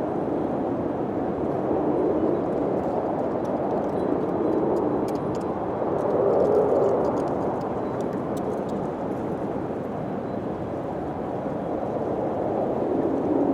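Wind blowing steadily, gusting up and easing off every few seconds, with a few faint clicks near the middle.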